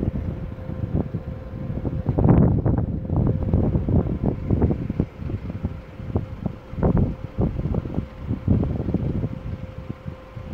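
Wind buffeting the microphone in irregular gusts, loudest about two seconds in and again near seven seconds, over a faint steady hum.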